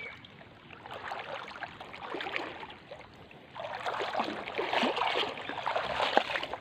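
Irregular rustling and splashing in shallow swamp water, getting louder about halfway through.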